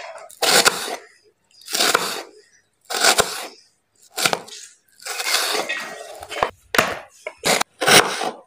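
Kitchen knife cutting through a raw pumpkin, a crunching crack with each stroke about once a second, the strokes coming quicker near the end.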